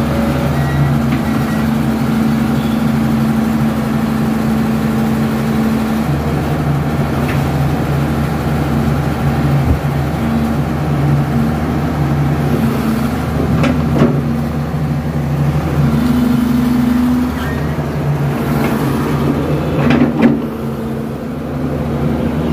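Diesel engine of a CAT hydraulic excavator running steadily, its tone swelling and easing every few seconds as it works under hydraulic load. A few short knocks come in along the way.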